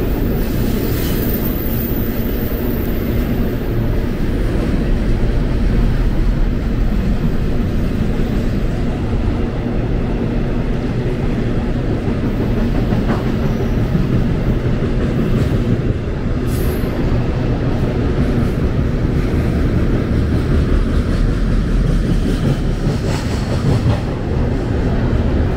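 Double-stack container freight train rolling across a steel trestle bridge overhead: a steady, loud rumble of wheels and cars on the bridge.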